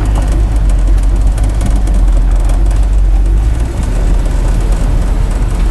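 Dodge Power Wagon's 360 cubic-inch V8 running on wood gas from an on-board gasifier while the truck drives, heard from inside the cab as a steady low rumble.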